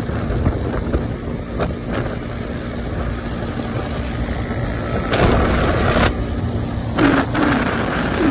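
Motorcycle engine running at highway speed, mixed with wind rushing over the microphone. The wind noise grows louder about five seconds in and again about seven seconds in.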